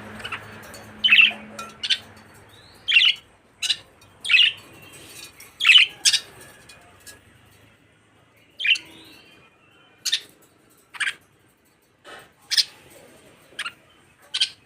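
Budgerigars chirping: about a dozen short, sharp calls spaced irregularly with quiet gaps between them.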